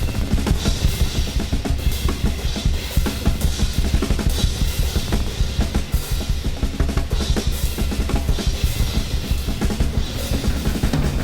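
Music led by fast, busy drumming, with about four hits a second over a steady deep bass.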